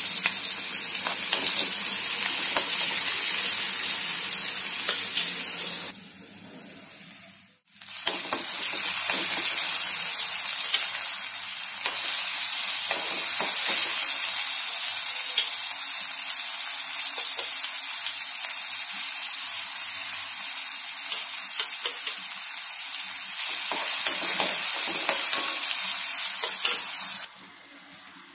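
Onions, then tomatoes and green chillies, sizzling in hot oil in a metal wok, with a spatula scraping and stirring. The sizzle drops away briefly about six seconds in and stops about a second before the end.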